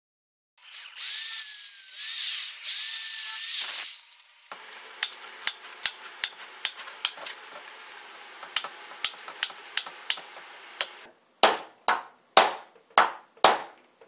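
A small power tool runs in two short bursts. Then tin snips cut through wire mesh, snipping sharply about twice a second. Near the end come five loud hammer blows about half a second apart.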